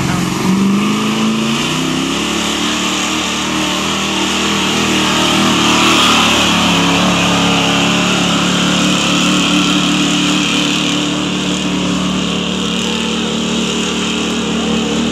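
Modified 4x4 pickup truck's engine held at high revs under full load while towing, its tyres spinning and digging in loose dirt. The engine pitch climbs over the first couple of seconds, then holds steady.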